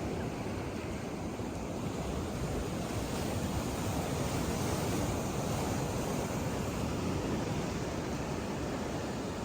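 Sea waves breaking and washing on a beach, a steady rushing surf that swells a little midway, with wind buffeting the microphone.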